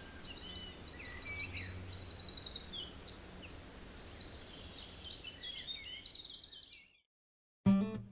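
Several birds chirping and calling in quick trills, over a low steady background hum; it all fades out about seven seconds in, and a strummed guitar starts just before the end.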